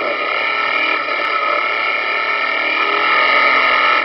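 Recorded clip of a Nissan CA18DET turbocharged 1.8-litre four-cylinder engine running under load, heard through a knock-monitoring system. A rattling noise sits in the background: engine knock (detonation).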